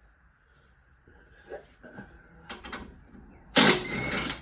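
A few light knocks of tools on metal, then a loud burst of an impact wrench spinning a bolt, lasting under a second near the end.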